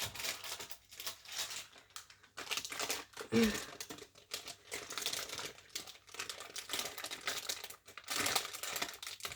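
A packet of face wipes crinkling and rustling as wipes are pulled out and handled, in irregular bursts with short pauses.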